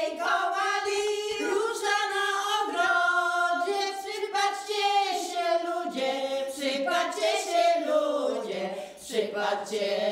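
A small group of older women's voices singing a folk song together, unaccompanied, in long held notes.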